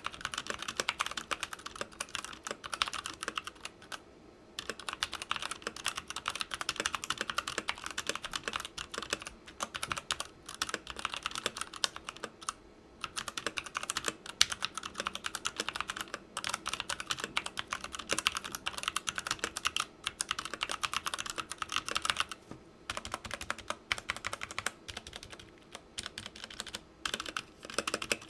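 Continuous fast typing on a Redragon K530 Draconic 60% mechanical keyboard with brown tactile switches, the keyboard resting on a desk mat; dense key clacks with brief pauses about four, thirteen and twenty-two seconds in.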